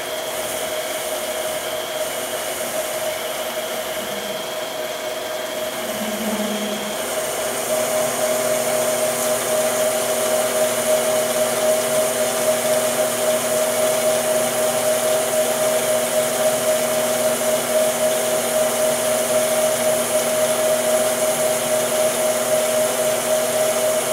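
Mini lathe running with a steady motor whine while the tool cuts a 1018 steel flywheel blank. The sound grows louder about eight seconds in and holds there.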